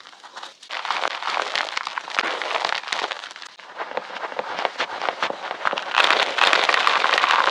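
Sticks of gym chalk crunching and crumbling in a dense run of crisp crackles and snaps, densest and loudest near the end.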